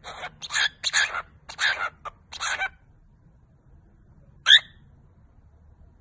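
Cockatiel calling: about five short, raspy chatters in quick succession, then after a pause one short, sharp chirp, the loudest sound.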